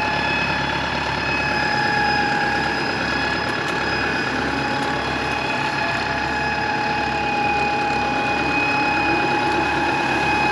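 Kubota farm tractor's diesel engine running steadily close by, with a steady high whine over the engine note.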